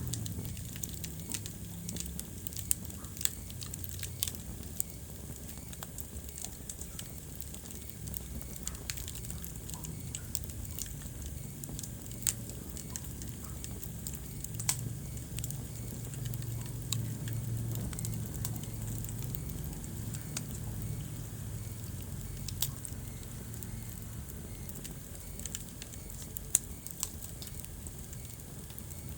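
Wood fire crackling in a fireplace: a steady low rumble of flames with irregular sharp snaps and pops, a few of them much louder than the rest.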